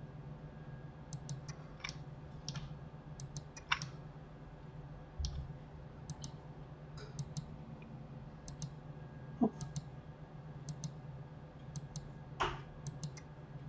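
Irregular clicks of a computer mouse and keyboard, over a low steady hum.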